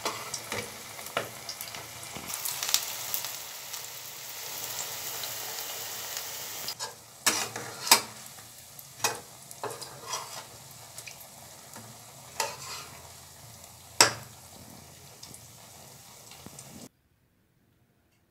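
Oil sizzling steadily as flat cakes shallow-fry in a pan, with repeated sharp clicks and scrapes of a metal spatula against the pan as they are turned. The sound cuts off suddenly near the end.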